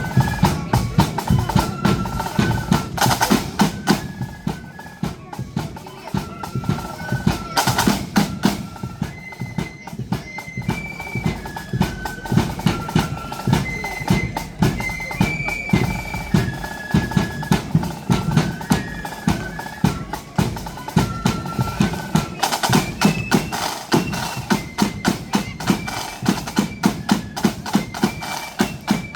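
Marching band playing on the move: a high melody line, in the range of flutes, over a steady beat of snare and bass drums.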